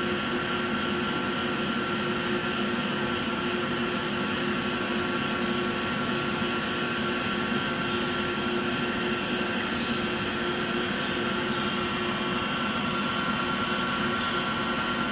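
Steady mechanical hum of running shop machinery, a constant drone with a few held tones and no knocks or changes.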